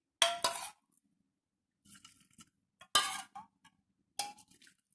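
Kitchen utensils clinking as a sieve, a pan and a glass vessel are handled for straining the boiled kadha: a few separate sharp clinks with a short ring, the loudest just after the start and about three seconds in, with lighter rattles between.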